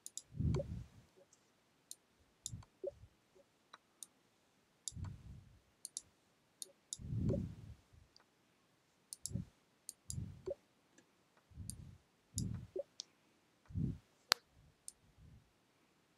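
Computer mouse clicks and soft low thuds, scattered irregularly a second or more apart, as chess puzzle moves are made on screen.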